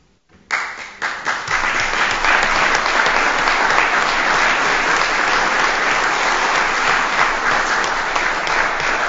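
Audience applauding: dense, steady clapping from many people that starts suddenly about half a second in and keeps up at an even level.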